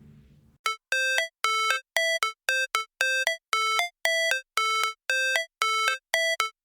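Background music: a tail of the previous track fading out, then a melody of short, evenly spaced synthesized beep notes, about two a second, sounding like a ringtone.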